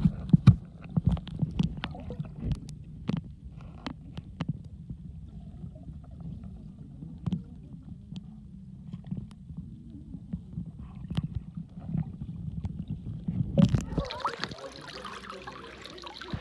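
Muffled underwater rumble picked up by a camera held underwater while snorkeling, with occasional sharp knocks. About 14 seconds in, the camera breaks the surface and brighter splashing water noise takes over.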